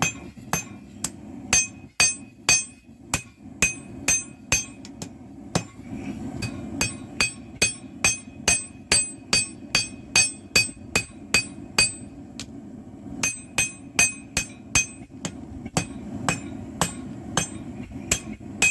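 Blacksmith's hand hammer striking steel on an anvil in a steady rhythm of about two to three blows a second, each blow ringing, with a brief pause about twelve seconds in. A steady low hum runs underneath.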